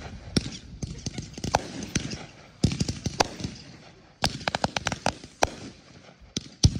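Aerial fireworks going off: volleys of rapid sharp cracks and bangs in three or four clusters, with one loudest bang near the end.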